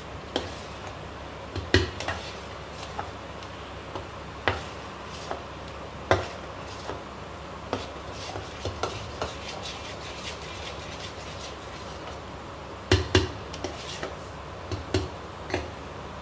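A metal spoon stirring thick mango purée in a stainless steel bowl: irregular clinks and scrapes of spoon on steel, with a quick run of knocks about three-quarters of the way through.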